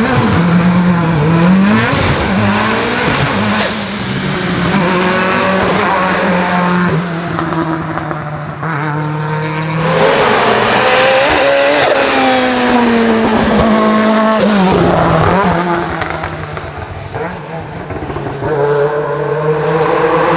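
Hill-climb racing car engine under hard acceleration, its pitch rising and dropping repeatedly through gear changes as the car passes. It fades twice, about eight seconds in and again around sixteen seconds.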